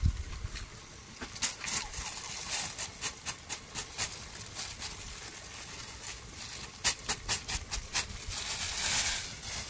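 Thin plastic bag crinkling while a wooden stick scrapes and taps chopped seasoning out of it into a steel pot: a string of short, crisp crackles, thickest about seven to eight seconds in.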